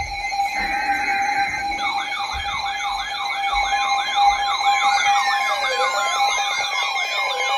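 Overlapping electronic sirens over a steady high tone. A fast sweeping yelp going up and down several times a second starts about two seconds in, and slower falling wails join it from about five seconds in.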